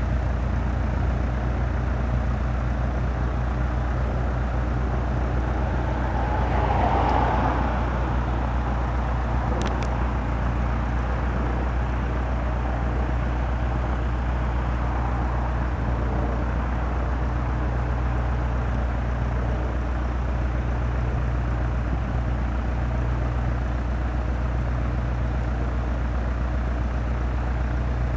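Engine running steadily with a constant low drone. A brief swell of noise comes about seven seconds in, and two sharp clicks near ten seconds.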